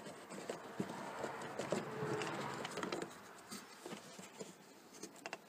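Faint scratching and small irregular clicks of hands handling a car's plastic turn-signal bulb socket and light housing, busiest in the first three seconds.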